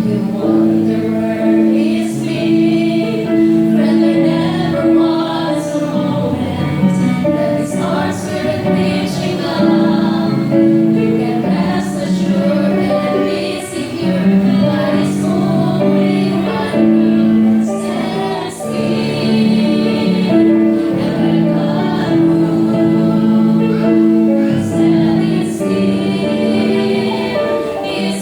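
A group of voices, mostly female, singing a gospel song with long held notes in harmony.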